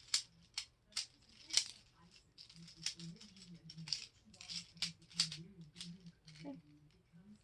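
Plastic Meigo magnetic building tiles clicking and clacking together as they are handled and snapped into line, in irregular sharp clicks a few times a second.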